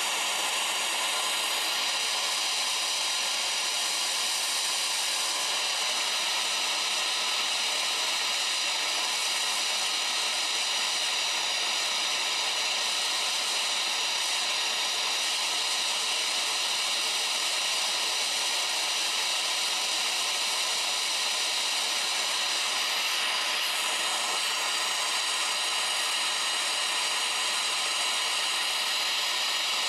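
Gas torch flame running with a steady rushing hiss, played into a ceramic melting dish to melt down refined silver.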